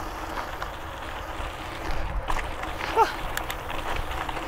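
Mountain bike riding along a dirt trail: wind rumbling on the helmet camera's microphone over tyre and frame noise, with faint rattles and a brief squeak about three seconds in.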